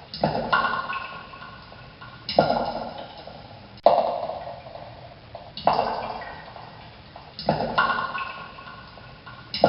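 Water drops falling one at a time, about six in a row at even spacing of roughly a second and a half to two seconds. Each drop lands as a ringing plink that fades away over a second or so.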